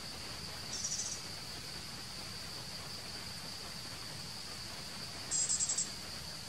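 Steady, high-pitched drone of insects in forest, with two short, rapid pulsed chirping trills, one about a second in and one near the end.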